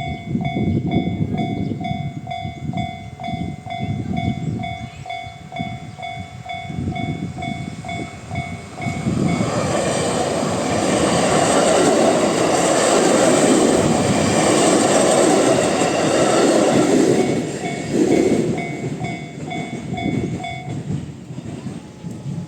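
JR-standard electronic level-crossing alarm ringing in a steady pulsing pattern while a 719 series 5000-subseries electric train, two two-car sets, passes over the crossing. The train's wheels and running gear are loudest from about ten to seventeen seconds in, and the alarm stops about twenty-one seconds in.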